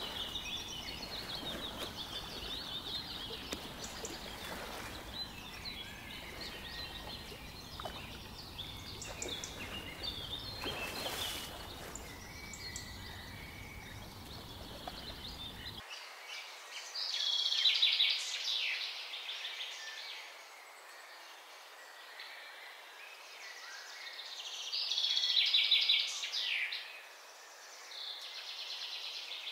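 Wild birds calling: many short chirps and calls, with two louder bursts of rapid chattering calls, one about halfway through and one near the end. A low background noise underneath cuts off abruptly about halfway through.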